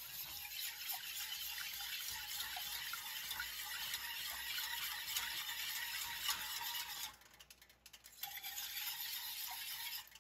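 Wire whisk beating a thin liquid sauce in a stainless steel saucepan: steady swishing and sloshing with light clinks of the wires against the pan. It stops for about a second around seven seconds in, then starts again.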